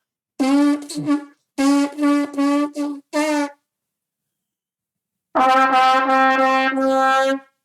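Brass horn played on one note: three short groups of tongued notes, each note started with the tongue ('ta ta ta'), then after a pause one long held note at the same pitch.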